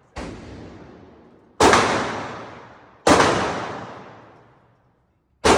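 Single gunshots: a fainter one right at the start, then three loud shots spaced about a second and a half to two seconds apart. Each shot trails off in a long echo.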